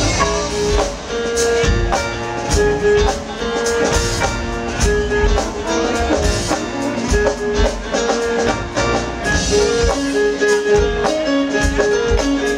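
Smooth-jazz band playing live: drum kit, bass and keyboards, with a melody in short held notes over a steady beat.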